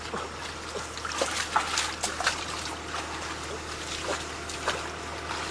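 Water trickling and splashing, with many small irregular splashes over a steady rush.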